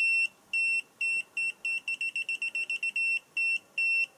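GVDA GD166B clamp meter's beeper sounding in non-contact voltage (NCV) detection mode: a train of high, pure-toned beeps, about two a second, that quickens to a rapid run of short beeps around the middle and then slows again. The quickening marks a stronger mains field being sensed.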